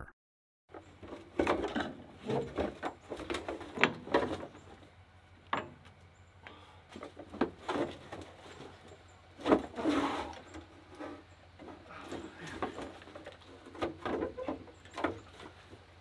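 Irregular clinks, knocks and scrapes of a hand wrench and loose metal parts being handled in a backhoe's steel cab, over a faint steady low hum.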